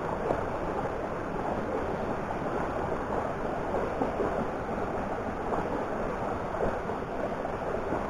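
Steady, even rushing noise, with no separate strokes or knocks.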